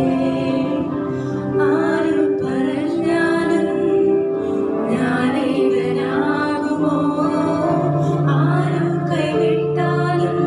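A woman singing a Malayalam Christian devotional song into a microphone, over electronic keyboard accompaniment holding sustained notes.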